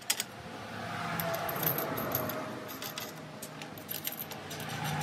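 Metal clinking and rattling of steel spike bolts and nuts being handled and threaded on by hand on a steel aerator plate: many small sharp clicks, over a soft rushing noise that swells and fades through the middle.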